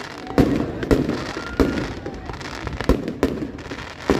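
Fireworks bursting: about six sharp bangs in four seconds, each with a short echoing tail, over a steady low rumble.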